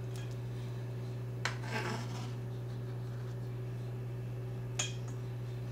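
A chef's knife clicking against a stainless steel mixing bowl and scraping minced clams off its blade: a sharp click about a second and a half in, then a short scrape, and another click near the end. A steady low hum runs underneath.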